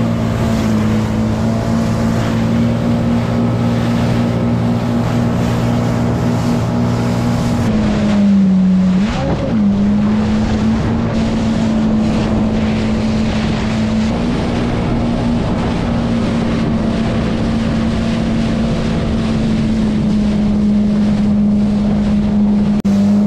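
Jet ski engine running steadily at speed over choppy water, with wind buffeting the microphone and spray hissing. About eight seconds in, the engine note dips for a moment and then climbs back.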